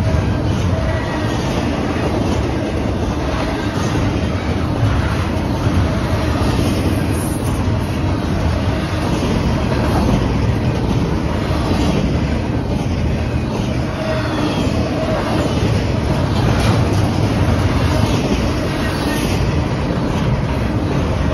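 Union Pacific double-stack intermodal train's well cars rolling past close by: a steady, loud rumble of steel wheels on rail with repeated clicks over the rail joints and a few faint squeals.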